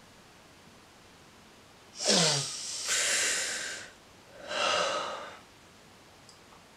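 A man breathing out heavily twice. The first begins about two seconds in as a short voiced groan falling in pitch and runs into a long breathy exhale. The second, shorter breath out comes about a second later.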